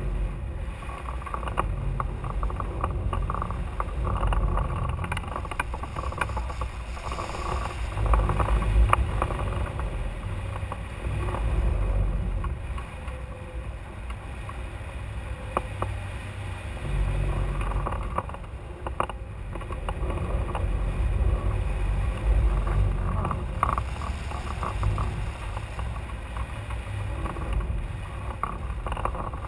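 Wind rushing over a camera microphone mounted on a hang glider in flight: a steady deep rumbling rush that swells and eases every few seconds, with occasional faint ticks.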